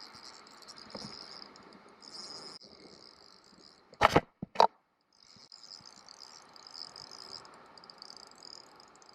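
Steady high-pitched chirring of insects. About four seconds in, two brief loud bursts of noise break in, followed by a moment of dead silence before the chirring resumes.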